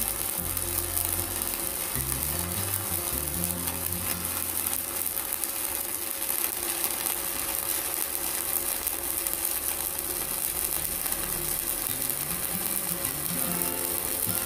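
Stick welding arc crackling and sizzling steadily as a 4.0 mm electrode burns on a mini IGBT inverter welder during a continuous run.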